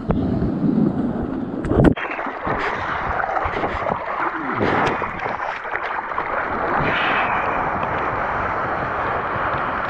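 Whitewater rushing and splashing around a surfboard riding through broken foam, heard right at the water's surface with wind buffeting the microphone. There is a deep rumble at first and a sharp splash just before two seconds in. After that comes a steady hiss of foam, crackling with spray.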